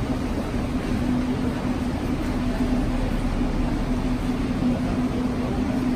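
Metro train standing at the platform with its doors open, its onboard equipment giving a steady hum with a held low tone.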